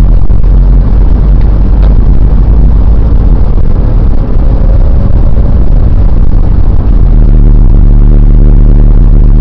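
A car's engine and road noise heard from inside the moving car's cabin: a loud, steady, deep drone.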